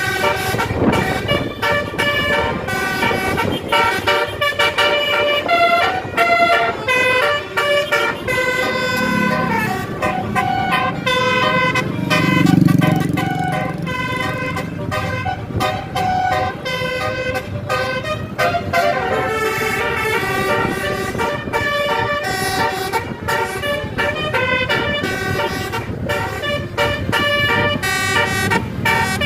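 Indonesian bus 'telolet' horn: a multi-tone horn playing a running melody of short stepped notes without a break, with a low rumble swelling briefly twice in the middle.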